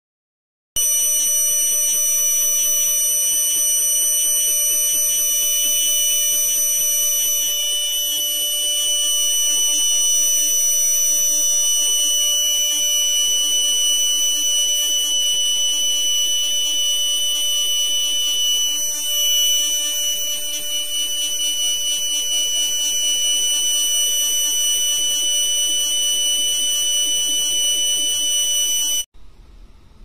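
Bell cicada (Dundubia hastata) calling: a loud, steady, shrill high-pitched song of several pure tones held without a break. It starts about a second in and cuts off suddenly near the end.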